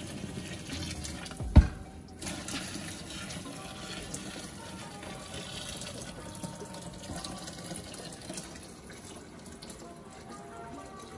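Hot cooking water pouring from a stainless-steel pot of boiled pork ribs into a kitchen sink as the pot is drained, with one sharp knock about a second and a half in.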